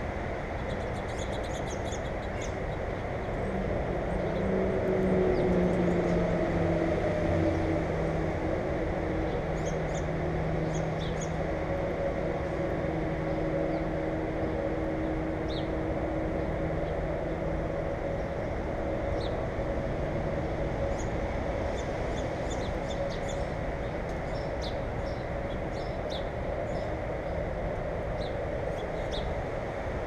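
Wild songbirds giving short, high chirps scattered throughout, over a steady low rumble. An engine hum swells about four seconds in, is loudest around six seconds, and fades out by about eighteen seconds.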